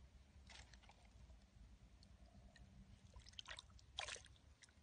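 A hand splashing and squelching in a shallow puddle of muddy water while groping for fish: a few faint, short wet splashes, the loudest about four seconds in.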